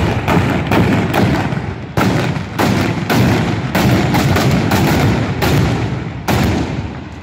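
Black-powder muzzleloading muskets fired one after another down a line of shooters, a ragged string of loud shots about two or three a second, each with an echoing tail; the last shot comes near the end.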